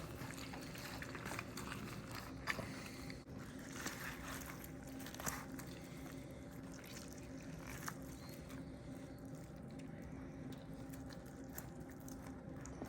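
Faint soft squishing of smoked pork butt being pulled apart, with a few light clicks over a low steady hum.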